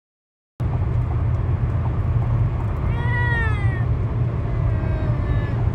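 Steady road and engine noise inside a car cruising on a highway, starting about half a second in. About three seconds in comes a short, high-pitched cry that rises and falls, and a fainter one near the end.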